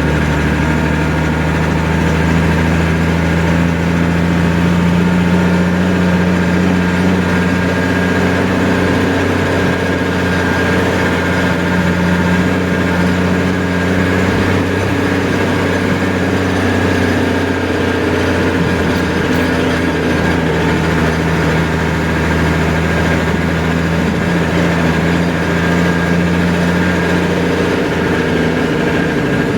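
A heavy engine running steadily at one constant speed, loud and close.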